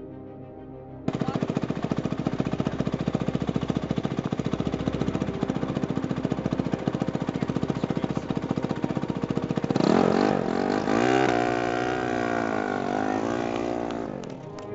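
Motorcycle engine running with a fast, even pulse that cuts in about a second in; over the last few seconds the revs rise and fall as the bike pulls away.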